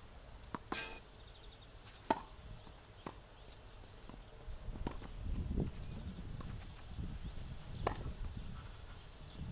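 Tennis rally: a few sharp, separate racket-on-ball hits and bounces spaced a second or more apart, the loudest about two seconds in, over a low rumble that swells in the middle.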